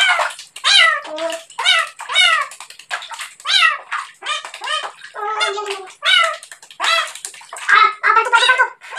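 A cat meowing over and over while it is being bathed in a basin of water, about two short, falling cries a second, the distress calls of a cat that does not like the wash. Water sloshes in the basin.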